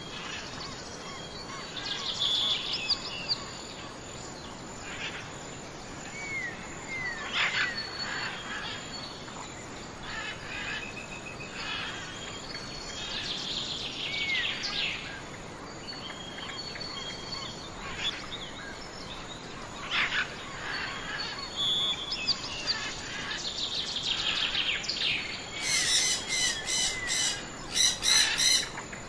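Several birds calling and singing: repeated trills and short chirps over a steady outdoor background, with a run of louder, rapid calls near the end.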